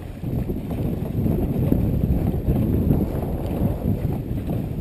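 Wind noise on the microphone over water rushing past a dragon boat being paddled at speed, a steady low noise throughout.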